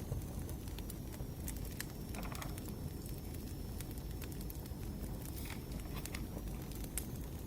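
Burning firewood crackling, with frequent sharp snaps and pops at irregular intervals over a steady low rumble of the fire.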